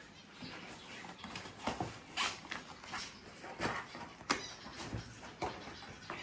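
Gift wrapping being torn and crumpled by hand: an irregular run of sharp crackles and rips, roughly two a second.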